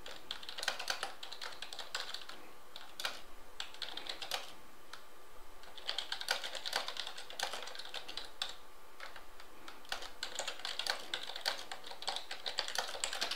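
Typing on a computer keyboard: quick runs of key clicks in four bursts with short pauses between them.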